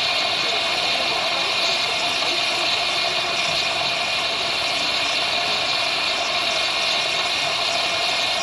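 Steady hiss of steam escaping from a standing miniature steam locomotive, one even, unbroken rush with no chuffing.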